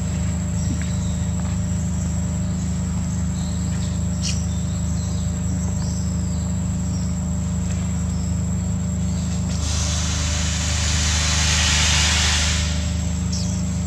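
A steady, high-pitched insect drone over a constant low hum. A broad rush of noise swells and fades again about ten seconds in.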